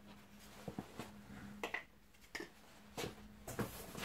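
Light, scattered clicks and knocks of hard plastic vacuum-cleaner attachments, a stair tool and a dusting brush, being handled and set down on a hard floor.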